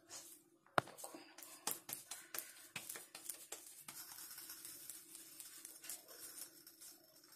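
Hands shaping a soft mashed-potato and vegetable mixture into tikkis: faint handling and patting with scattered light clicks, one sharper click about a second in, over a faint steady hum.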